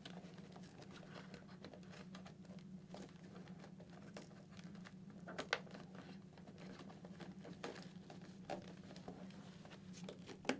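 Faint rustling and light scratching of a fabric-covered foam cheek pad being pushed by hand into a motorcycle helmet's shell, with scattered small clicks, a sharper one about five and a half seconds in and another near the end, over a steady low hum.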